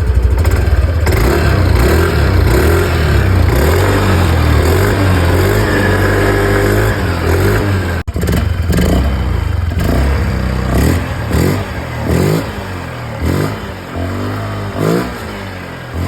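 Yamaha NVX scooter's single-cylinder engine running loud through an exhaust with its baffle removed, held at a steady speed at first, then blipped repeatedly, about once a second, in the second half.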